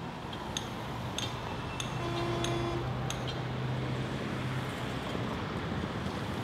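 City street traffic: a steady wash of passing vehicles with a low engine hum from a bus going by. Five light clinks come a little over half a second apart in the first three seconds.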